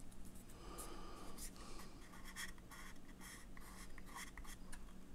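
Faint handling sounds of fingers rubbing and lightly ticking on the casing of an Elgato Facecam webcam as it is turned over in the hands.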